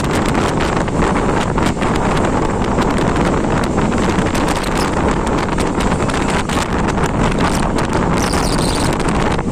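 Passenger train running, heard from on board with heavy wind buffeting the microphone and many quick, sharp clicks through the steady noise.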